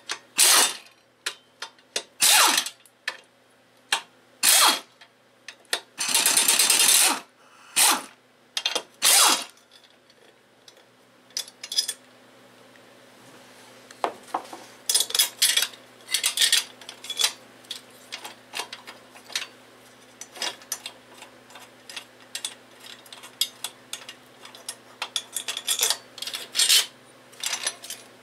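Hand ratchet wrench clicking in a series of short strokes on the cylinder head bolts of a Briggs & Stratton Raptor 5 hp engine. It is followed by lighter scattered metal clicks and taps as the parts are handled and the head is worked loose.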